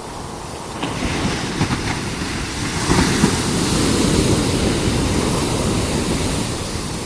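Ocean surf breaking on the beach, swelling from about a second in to its loudest around three to four seconds and then washing back, with wind on the microphone.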